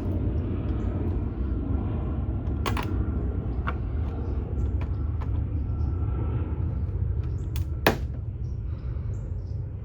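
A few sharp clicks and knocks of hands working on the plastic trunk handle and switch parts: one about three seconds in, a lighter one soon after, and a louder pair near the end, over a steady low rumble.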